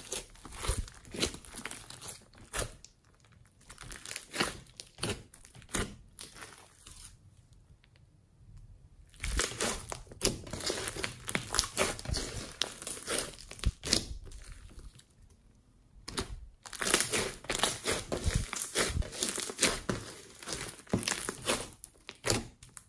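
Hands kneading and squeezing a large mass of glossy slime mixed with foam beads: sticky crackling, made of dense runs of small clicks and pops. It goes quieter twice, for several seconds in the first half and briefly about two thirds of the way through.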